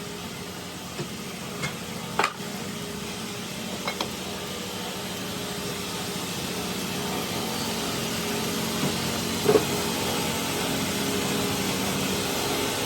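Steady machinery hum, with a few sharp knocks and clicks scattered through it.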